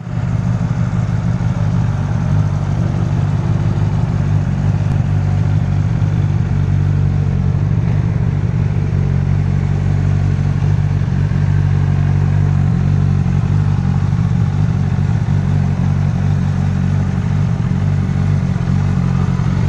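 Suzuki GSX-S1000F's inline-four engine idling steadily.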